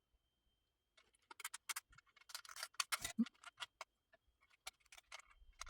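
3D-printed plastic parts clicking and rattling as they are handled and fitted together: a string of light, irregular clicks and taps starting about a second in.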